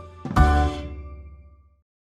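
Jingle music ends on a final chord, struck about a third of a second in, that rings and fades out.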